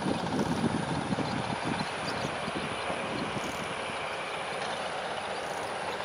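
Steady rumble of vehicle traffic, easing from a louder pass during the first second, with a few faint, high chitters from a barn swallow.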